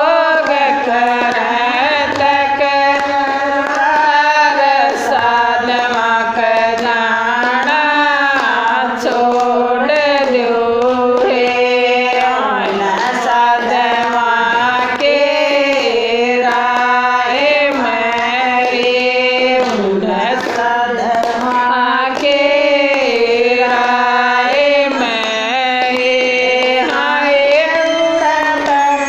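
Women singing a Haryanvi devotional bhajan, a continuous sung melody with sliding, bending notes.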